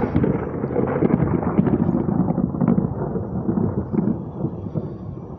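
A long roll of thunder rumbling, loud at first and slowly dying away, with a few sharp cracks in it.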